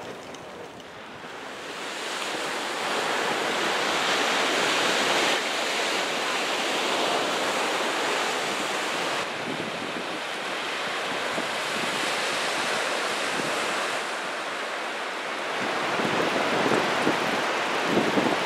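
Ocean surf breaking and washing up the beach, swelling about two seconds in, with wind on the microphone.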